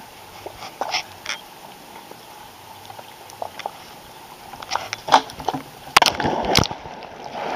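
Pool water heard underwater: scattered bubbly clicks, then, about six seconds in, a loud rush of bubbles and churning water as someone plunges in overhead.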